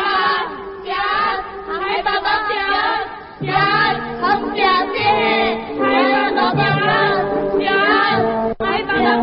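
Soundtrack music: a chorus of voices wailing in long, wavering notes. Sustained low instrumental notes come in under them about three and a half seconds in.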